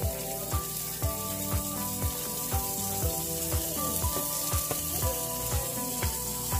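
Onion slices sizzling in hot frying oil in a pan as they are laid in one at a time. Over it runs background music with a steady thumping beat about twice a second, which is the loudest thing heard.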